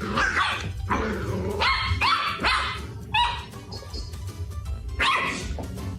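Dog barking repeatedly: a quick run of barks in the first three and a half seconds, then one more about five seconds in, over background music.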